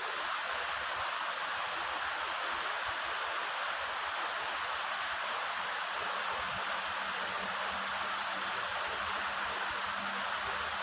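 Heavy rain pouring steadily, a dense even hiss with no thunder. A faint low hum joins about halfway through.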